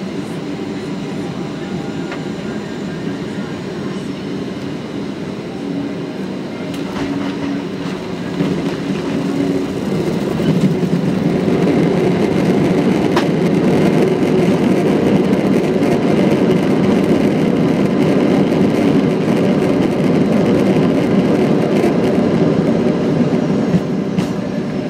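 Boeing 737-800 landing, heard from inside the cabin: a steady engine and airflow hum, then about eight seconds in the wheels meet the runway. A loud, rumbling roar of the rollout builds with reverse thrust and braking, holds, and eases off near the end.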